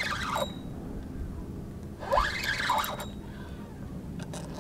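Spinning reel being cranked against a hooked fish, with a short rising-and-falling whir about every two and a half seconds over a low rumble of wind on the microphone.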